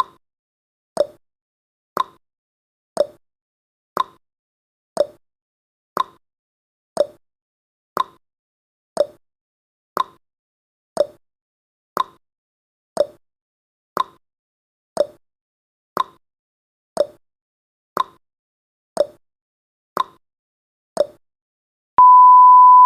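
Countdown timer's tick sound effect, one short clock-like tick every second. Near the end the ticking stops and a steady beep begins: the time's-up alarm as the countdown reaches zero.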